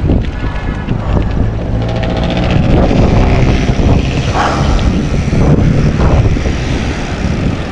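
Wind buffeting the microphone of a camera mounted on a moving bicycle's handlebars, a loud, steady rumble.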